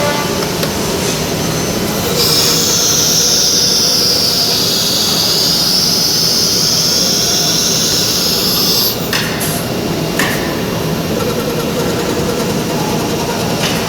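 CNC machining centre running with a steady mechanical noise. About two seconds in, a high-pitched whine starts, sags a little in pitch and climbs back, then stops about nine seconds in. A few sharp clicks follow.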